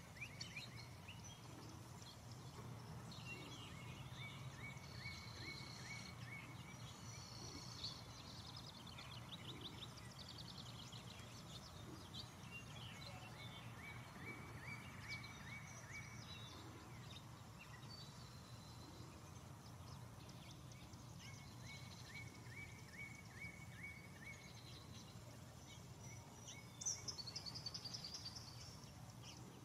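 Faint outdoor ambience of songbirds: a trill of rapid, evenly spaced notes comes a few times, with scattered higher chirps between. Near the end a louder cluster of calls stands out. A low steady hum runs underneath.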